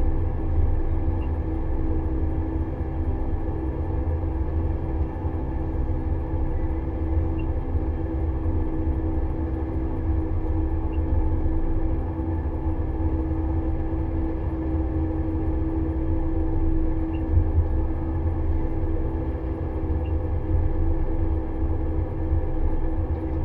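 Steady drone of a Pellenc Optimum grape harvester at work, heard from inside its cab as it harvests along a vine row, with a low engine hum and a steady mechanical tone that holds at an even level.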